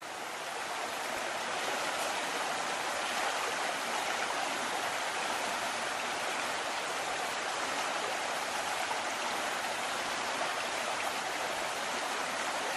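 Steady rush of running water, fading in over the first couple of seconds and then holding even.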